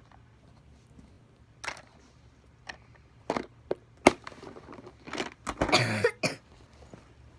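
Handling noises as school items are moved in and out of a backpack: scattered knocks and rustles, one sharp click about four seconds in, and a louder rustling burst near six seconds.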